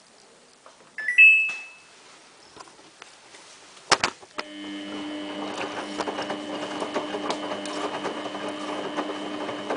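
Samsung WF8804RPA front-loading washing machine starting its cycle: a short electronic beep from the control panel, a sharp click about three seconds later, then the machine's motor settles into a steady running hum.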